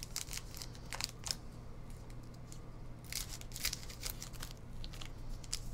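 Foil trading-card packs crinkling and tapping as they are handled, picked up and laid down, in short scattered rustles over a faint steady low hum.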